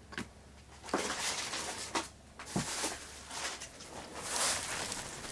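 Rustling of old paper and photographs being handled with a gloved hand, in several short swells, with a few light clicks.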